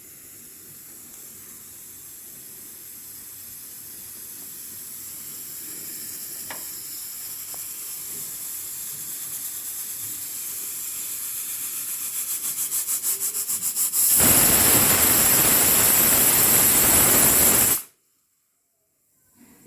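Hawkins pressure cooker building pressure: steam hissing from the vent, growing steadily louder and starting to flutter as the weight begins to lift. About fourteen seconds in the cooker whistles, a loud rush of escaping steam lasting about four seconds, which cuts off abruptly.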